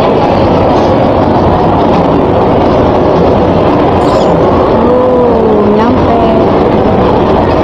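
Escalator running: a loud, steady mechanical noise from the moving steps and drive.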